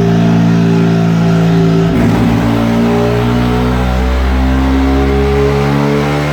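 Mazda FC3S RX-7's two-rotor 13B rotary engine running loud on a dynamometer, its note holding a fairly steady pitch, with a brief rough break about two seconds in.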